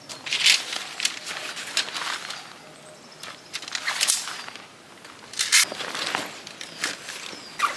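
Irregular rustling and scuffing noises in short bursts about a second apart.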